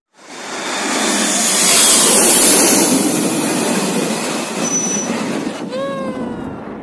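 Jet airliner passing low overhead on landing approach: loud engine noise swells in about half a second in, peaks a couple of seconds later and slowly eases, with a whining tone that falls in pitch near the end.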